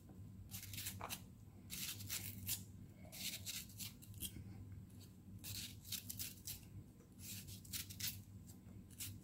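Kitchen knife slicing strips off a red bell pepper held in the hand, in short runs of crisp cuts every second or two.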